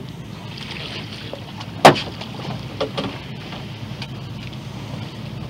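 Steady low rumble of a small fishing boat, with one sharp knock about two seconds in and two lighter knocks about a second later, from a landing net being worked against the boat's side.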